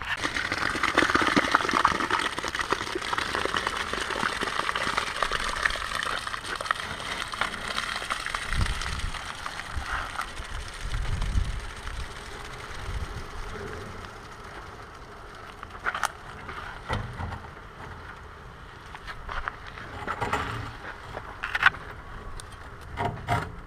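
Hand work filling a gate post hole with wet concrete: a steady rushing, scraping noise for about the first ten seconds, then scattered knocks and scrapes.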